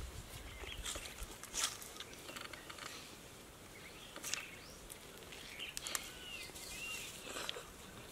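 Dragon fruit rinds being peeled back by hand, giving a few short scattered crackling snaps, with birds chirping in the background and a couple of short chirps about six seconds in.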